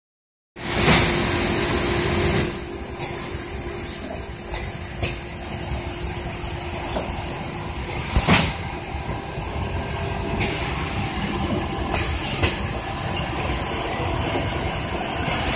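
Thermoforming machine line running: steady mechanical noise with a high air hiss that drops away and returns, and a few sharp clunks.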